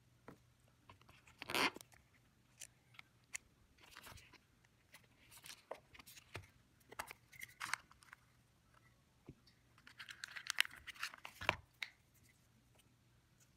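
Hands handling earbud packaging and accessories: scattered clicks and taps with short crinkling, tearing rustles of cardboard and plastic. There is a louder rustle about a second and a half in and a dense run of crinkling near the end.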